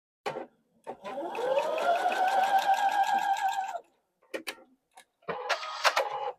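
Electric sewing machine stitching a seam corner to corner across a fabric square: the motor speeds up with a rising whine, then runs steadily with the needle's rapid strokes for about three seconds. A few light clicks follow, then a second, shorter run of stitching near the end.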